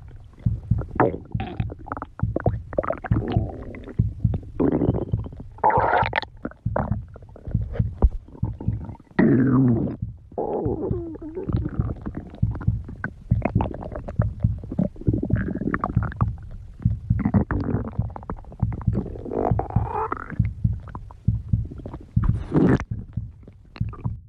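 A person's stomach growling and gurgling without a break: rapid low pops and bubbling, broken by drawn-out squeaky rumbles that slide up and down in pitch.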